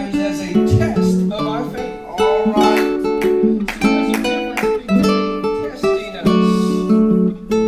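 Guitar playing strummed chords, with notes changing every second or so.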